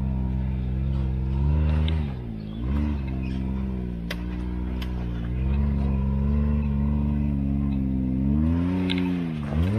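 Can-Am Maverick X3 XRC's turbocharged three-cylinder engine working hard as the UTV crawls up a steep, rutted climb. The revs hold mostly steady, dip and pick up again a couple of times with the throttle, and there are a few sharp knocks from the wheels and chassis over the ruts.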